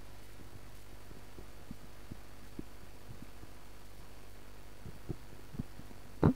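A steady low hum with a scattering of faint soft knocks and thumps, which grow more frequent toward the end, then one louder thump just before the end.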